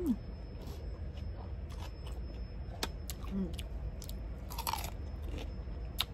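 Close-up mouth sounds of chewing, with a run of small crisp clicks, then a loud crunchy bite into a whole raw red radish about four and a half seconds in.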